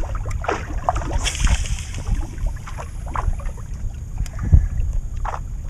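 Wind buffeting the microphone on an open boat, a steady low rumble, with a few light clicks and a brief hiss about a second in. A single sharp knock on the boat comes about four and a half seconds in and is the loudest sound.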